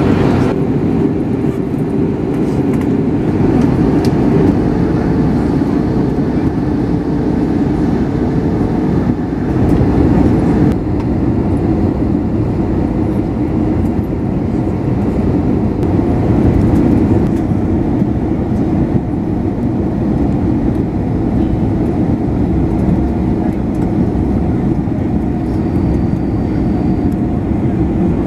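Steady cabin roar of an Airbus A321neo airliner on its descent, engine and airflow noise heard inside the cabin next to the wing-mounted engine. The higher hiss eases slightly about ten seconds in.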